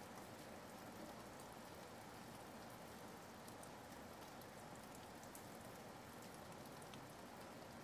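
Near silence: a faint steady hiss with a few faint scattered ticks.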